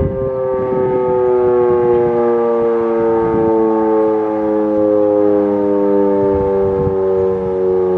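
Federal Signal Model 7 electromechanical warning siren sounding loudly during its test, one wailing tone whose pitch slowly sinks.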